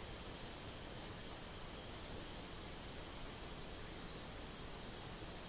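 Faint steady background hiss with a constant high-pitched whine, and a few very faint clicks.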